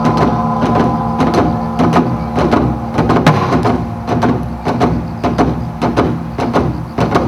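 Music for a dance performance: sustained held tones under quick, fairly regular sharp percussive hits.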